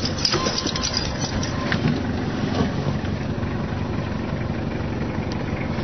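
A vehicle's engine running with steady road noise as it drives, with a few clicks and rattles in the first second.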